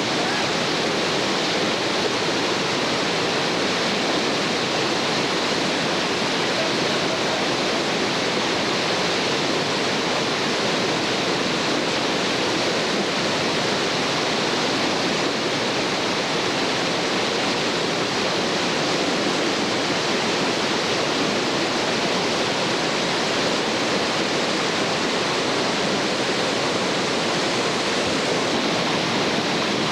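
Whitewater rapids rushing in a steady, unbroken roar of churning water.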